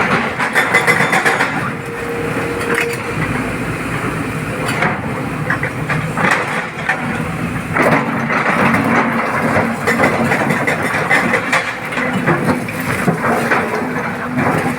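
Excavator's diesel engine running under load, with repeated cracks and clatter of stone being scooped and dropped.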